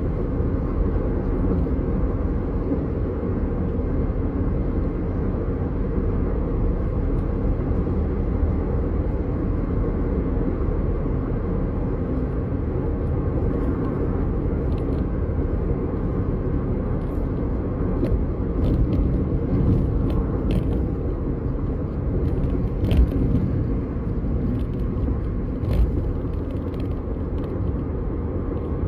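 Steady road and engine rumble inside a moving car's cabin. From about halfway through, a scattering of light clicks and crackles sits over it.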